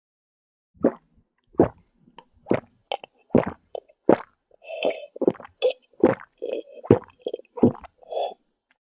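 A monkey drinking: a dozen or so short, wet gulps and slurps, roughly one or two a second.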